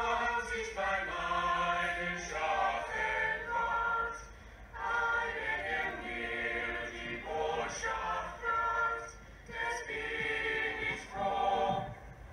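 A choir singing unaccompanied, in phrases a few seconds long with short breaks between them.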